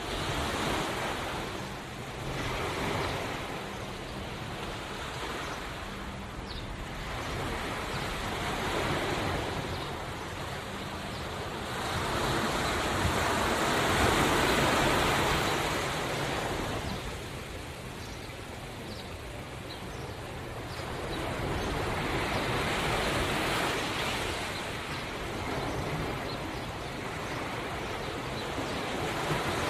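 Ocean waves breaking and washing onto a shore, a continuous surf rush that swells and falls back every several seconds, loudest about halfway through.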